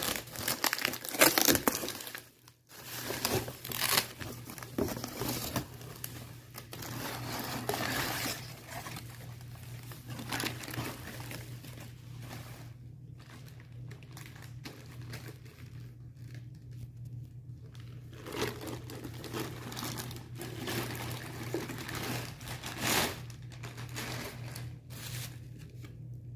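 Plastic packaging crinkling and rustling in irregular bursts as a parcel is unpacked by hand: a plastic bag, inflated air pillows and bubble wrap being handled and pulled out of a cardboard box. A steady low hum runs underneath.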